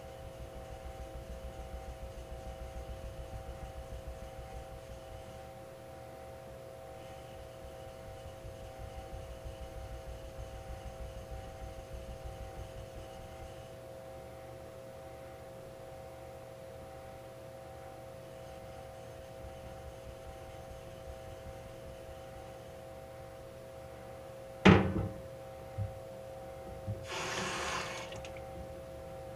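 A single-bevel yanagiba blade of Hitachi White #1 steel stroked back and forth on a water stone in two long runs of rapid strokes, over a steady hum. Near the end there is one loud sharp knock, then a short hissing rush.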